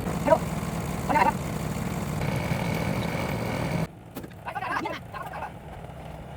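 A steady low engine hum that cuts off abruptly about four seconds in. Short animal calls sound over it and continue after it stops.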